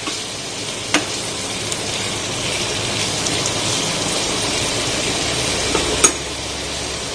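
Sliced onions, tomatoes and ginger sizzling steadily in hot mustard oil in a frying pan while being stirred with a metal spatula. The spatula knocks sharply against the pan about a second in and again near the end.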